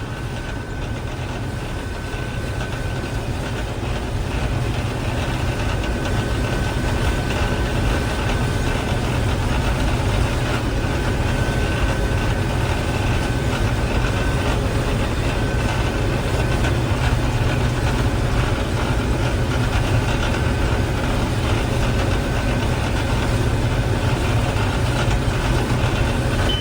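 Gleaner M3 combine running steadily while harvesting wheat: a constant low engine and machinery drone with a thin steady whine above it, growing a little louder a few seconds in.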